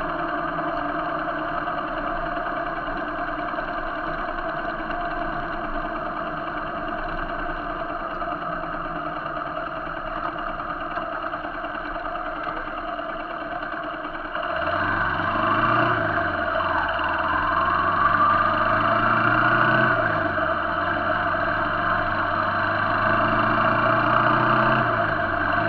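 Motorcycle engine running steadily at highway cruising speed. About halfway through it gets louder and a deeper engine note comes in, rising and falling a few times with the throttle.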